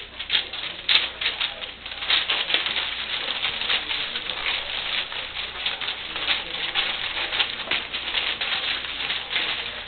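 A litter of English Springer Spaniel puppies eating together: a dense, continuous patter of rapid small clicks and smacks, busier from about two seconds in.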